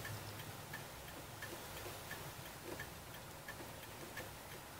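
Faint, even ticking of a Toyota Prius's turn-signal flasher, about one tick every 0.7 seconds, with the turn signals or hazards switched on.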